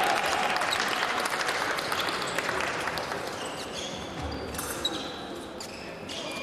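Épée fencers' footwork on the piste in a sports hall: shoes squeaking and stamping, with scattered clicks and faint background voices. A stretch of hiss at the start fades over the first couple of seconds.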